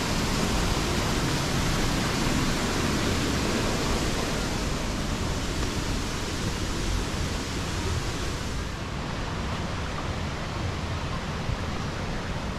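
Fast-flowing river water rushing, a steady hiss with no breaks; the highest part of the hiss thins a little about two-thirds of the way through.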